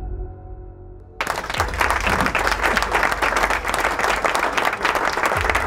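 The tail of a soft ambient music intro, then about a second in audience applause starts suddenly and carries on steadily.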